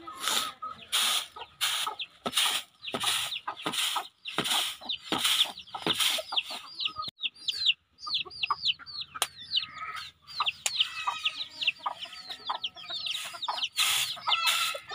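Raw rice grains swishing in a bamboo winnowing tray, shaken in short strokes about two a second through the first half and again near the end. Chickens chirp and cluck, with many short falling chirps from about five seconds in.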